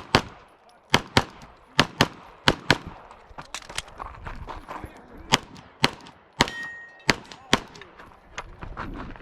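Pistol shots fired in a rapid stage string, mostly in quick pairs: a couple of double-taps in the first three seconds, a quieter stretch around the middle, then more pairs in the last four seconds.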